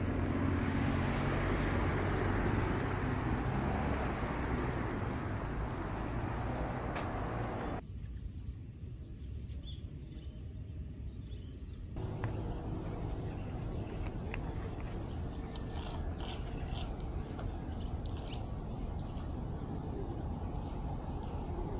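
Outdoor park ambience. Wind on the microphone at first, cut off suddenly about eight seconds in by a quieter stretch. From about twelve seconds in there is steady open-air background with a few faint bird chirps.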